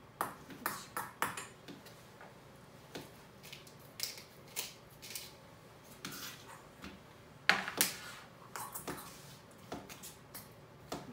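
Scattered clicks and light metallic clinks of food prep: a kitchen knife chopping sausage on a thin cutting board, and a spoon clinking against a small stainless bowl. A louder run of taps comes about two-thirds of the way through.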